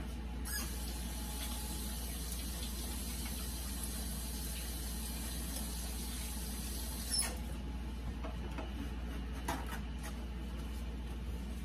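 Kitchen faucet running in a steady hiss for about seven seconds, then turned off with a click, followed by a few light knocks. A steady low hum runs underneath.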